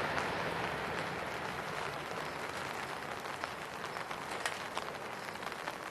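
Rain falling: a steady hiss with many separate drops ticking close to the microphone. Under it, the jet noise of the landed Airbus A320 fades away over the first couple of seconds.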